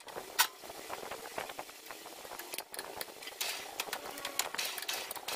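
Short metallic clicks and knocks as a steel bar is fitted into a lathe chuck and the jaws are tightened with a chuck key, with a sharp click about half a second in and a busier run of clicks near the end.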